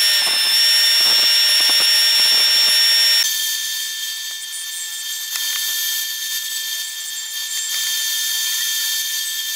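Jointer cutterhead running as a board is pushed across it: a steady high whine with gritty cutting noise. About three seconds in the sound drops to the quieter steady whine of a running bandsaw.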